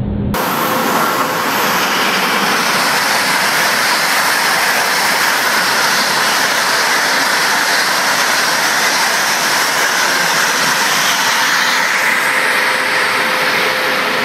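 Deutsche Bahn ICE 3 high-speed train rushing past at speed: a loud, steady rush of air and wheel noise that cuts in abruptly.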